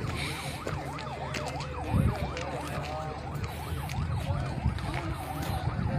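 An emergency vehicle's siren wailing rapidly up and down, about three sweeps a second, over a low steady rumble, with a brief thump about two seconds in.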